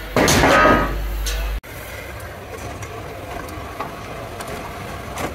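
Loud metallic clatter with some ringing as a cut steel roof hoop falls onto the truck body. After an abrupt break, a steady hiss with small crackles follows, typical of a gas cutting torch working through steel.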